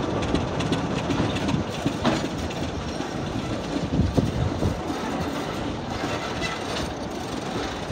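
A pair of British Rail Class 25 diesel locomotives with Sulzer six-cylinder engines running away along the adjacent line, their engine sound slowly fading. Wheels click over the rail joints a few times.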